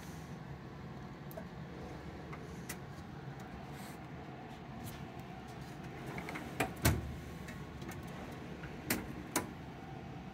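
Metal desk pedestal drawers being shut and pulled open: a heavy clunk about seven seconds in, then two sharper clicks about two seconds later, over a steady low hum.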